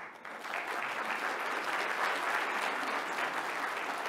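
An audience applauding steadily, building up within the first half second.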